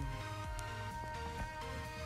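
Background music: long held notes over a pulsing low beat.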